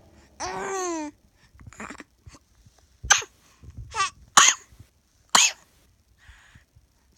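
A baby makes one brief high falling vocal sound, then a run of about five short, sharp coughs at uneven gaps.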